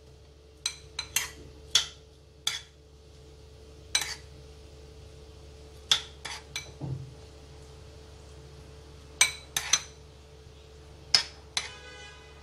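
Metal spoon clinking against a ceramic bowl while a ginger, chili and soybean sauce is stirred: about a dozen sharp, briefly ringing clinks at uneven intervals, several in quick clusters, over a faint steady hum.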